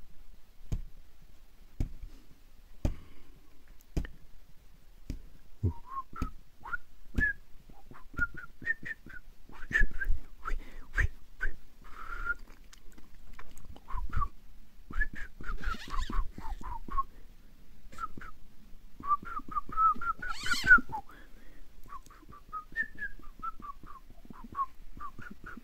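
A person whistling a tune in short, broken notes, starting a few seconds in, with light clicks about once a second underneath.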